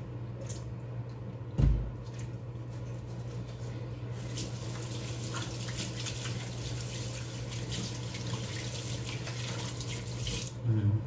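Kitchen tap running into a sink while hands are soaped and rinsed under the stream, the splashing louder and busier from about four seconds in. A single knock comes about two seconds in, over a low steady hum.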